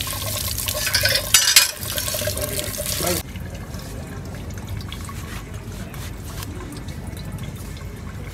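Tap water running and splashing onto an eggplant held under the faucet, with a brief louder splash about a second and a half in; the water cuts off abruptly about three seconds in. After that only faint light clicks as a knife slits the eggplant's skin.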